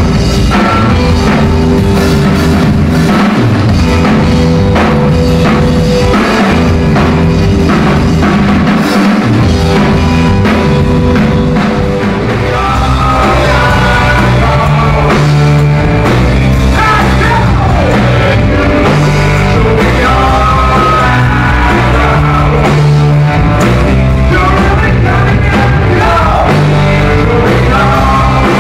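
Live rock band playing loudly: drum kit and bass guitar driving an instrumental passage, with a man's singing voice coming in about halfway through.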